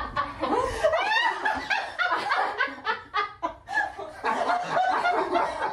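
People laughing together, with a high rising squeal of laughter about a second in and quick repeated laughs after it.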